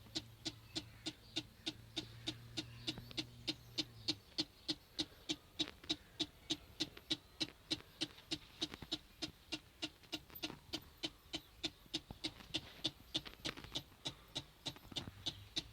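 Starter relay of a 2005 Kawasaki ZX-6R 636 chattering, a rapid even clicking at about four clicks a second, with a low hum during the first few seconds. The starter does not turn the engine: the bike's electrics go dead when the starter button is pressed.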